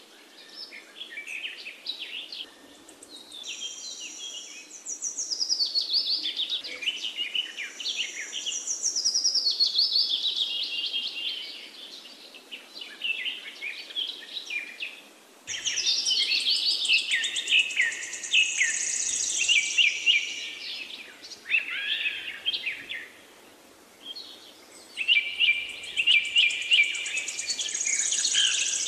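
Birds singing and chirping: many quick trills and downward-sweeping calls overlapping in waves, with a couple of short lulls.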